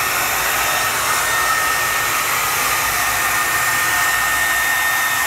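Handheld hair dryer running steadily, blowing air over wet epoxy: an even rush of air with a thin, steady whine.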